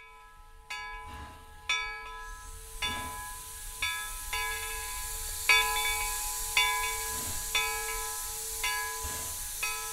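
A steam locomotive's bell ringing about once a second, each stroke ringing on into the next, over hissing steam that swells up about two seconds in.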